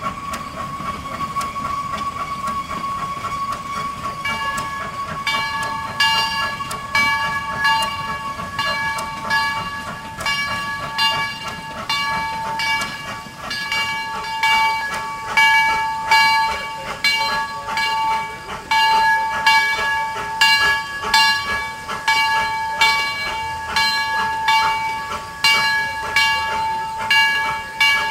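Steam locomotive #242 working under steam: its exhaust chuffs in a regular beat that comes in a few seconds in and grows louder as it draws near, over a steady high-pitched whine.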